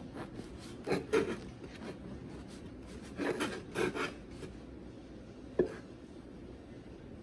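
Bread knife sawing through a soft loaf of white sandwich bread on a wooden cutting board, with rasping strokes in two short bursts, about a second in and again around three to four seconds in. One short sharp knock follows as the cut finishes.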